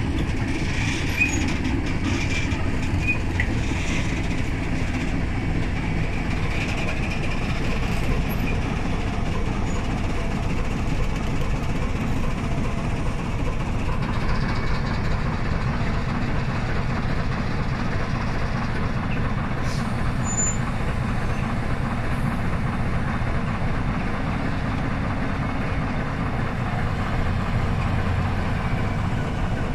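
A freight train of hopper wagons rolls slowly along the rails with wheel noise, clacks and light squeaks. A BDZ class 55 diesel locomotive's engine runs underneath as it moves the wagons.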